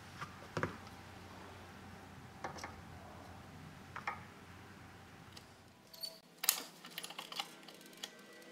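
Faint, scattered light clicks and taps from hands and tools handling a digital dial indicator fitted in the spark plug hole, a few spaced apart, then a quick run of clicks about six to seven and a half seconds in.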